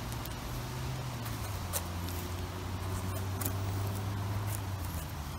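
Serrated knife scraping soil off the stem base of a penny bun (porcini) mushroom: scattered short scratchy clicks over a steady low hum.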